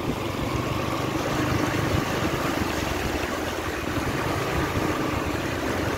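Motorcycle engine running at low speed as the bike rides through floodwater, with steady splashing and wash from the wheels cutting through the water.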